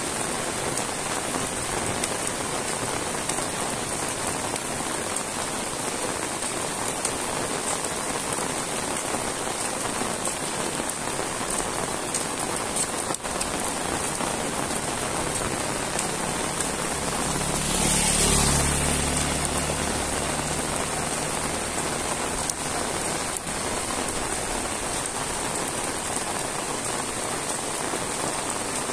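Heavy rain falling steadily on a wet paved road and the leaves around it. From about 16 to 20 seconds in, a motor vehicle passes, its engine hum swelling and fading over the rain.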